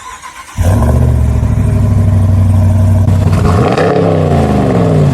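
Pickup truck engine running, starting abruptly about half a second in with a steady low note, then revved once near the end, the pitch rising and falling back.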